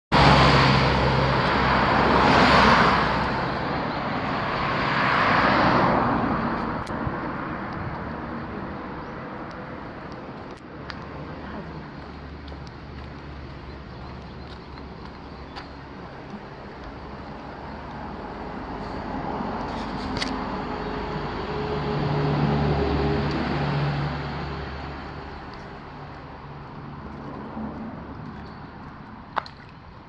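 Cars passing on a road: two loud passes close together in the first six seconds, then traffic noise fading, and another car swelling up and dying away about twenty-two seconds in. A few sharp clicks near the end.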